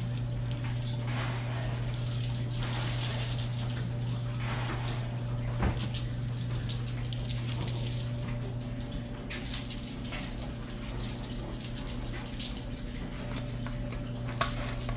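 Seasoning shaken from spice shakers onto fish fillets on aluminium foil: a sandy hiss with light rattles, over a steady low hum. One sharp knock about six seconds in.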